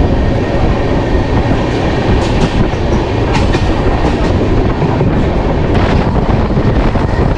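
Indian express train running on the rails, heard from an open coach door as it leaves a station and gathers speed: a loud, steady rumble of wheels and carriage, with a few sharp clicks as the wheels cross rail joints.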